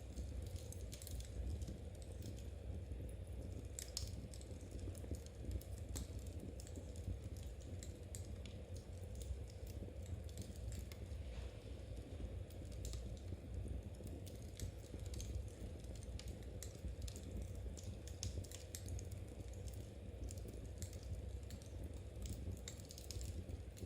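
Knitting needles clicking lightly and irregularly, mixed with small crackles from a wood fire, over a low steady rumble.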